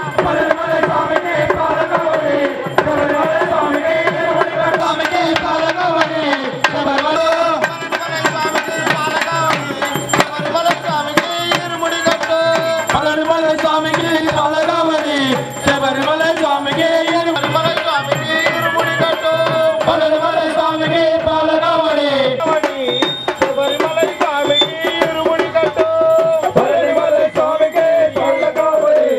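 Devotional Ayyappa bhajan sung by male devotees, a lead voice holding long bending notes, over a steady beat of hand percussion.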